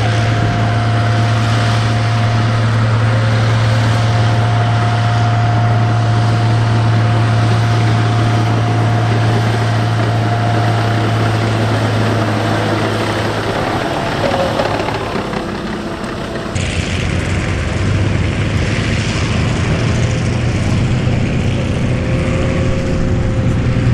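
Tracked M8 High-Speed Tractor driving, its Continental AOS-895 six-cylinder air-cooled petrol engine giving a steady low drone with a thin steady whine above it. The sound dips briefly about two-thirds of the way through, then changes abruptly and the engine drone carries on.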